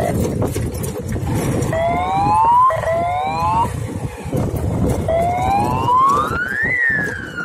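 Motorcycle riding over a rough dirt track: a steady low rumble, with a high whine that rises in pitch over about a second, twice, then rises for longer and falls again near the end.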